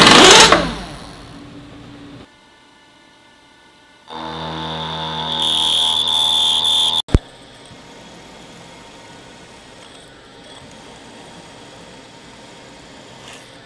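A loud burst of noise at the very start. After a short near-silent gap, a vertical milling machine's spindle runs and an end mill cuts into a metal block, with a high steady squeal that grows louder, then cuts off suddenly about seven seconds in. A faint steady machine hum follows.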